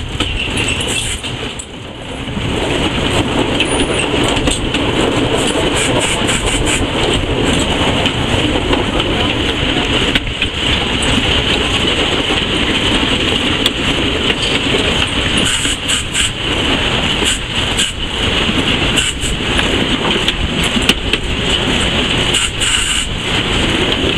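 Steam locomotive under way, heard from inside its cab: a loud, steady rush of running noise with many sharp knocks and clanks. The noise dips briefly about two seconds in.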